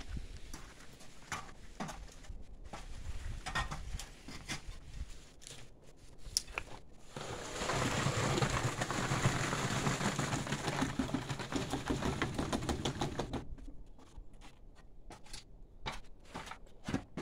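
Wet concrete (cement, sand and gravel) pouring out of a bucket into a timber column form, a steady rush of about six seconds around the middle. Scattered knocks and scrapes before and after.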